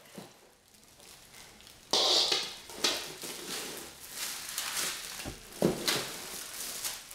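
Plastic wrapping crinkling and rustling as plastic-bagged lamp parts are handled and lifted out of a cardboard box, starting about two seconds in, with a few sharp knocks of parts against the box and floor.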